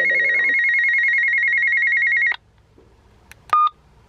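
Midland MicroMobile GMRS radio sounding its call tone after the CALL button is pressed: a loud, fast-warbling ring that cuts off abruptly about two seconds in. Near the end comes a single short beep.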